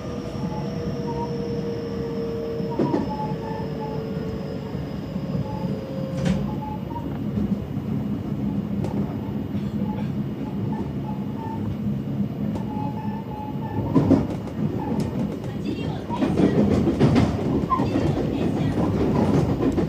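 Electric train heard from inside the cab: a motor whine falls slowly in pitch over the first six seconds under steady running noise. From about two-thirds of the way in, the wheels clatter over rail joints and points, the loudest part.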